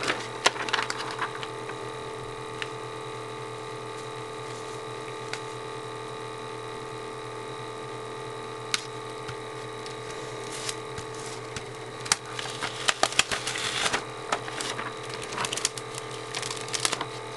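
Vinyl decal pieces and transfer tape being handled and pressed: scattered crackles and ticks, growing busier in the last few seconds, over a steady hum.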